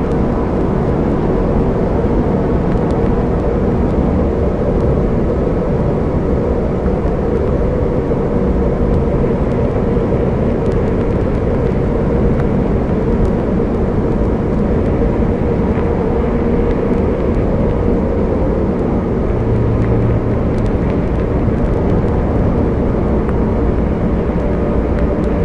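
Slowed-down, heavily reverbed dark ambient drone music: a dense, steady wash of rumbling noise with faint held tones buried in it.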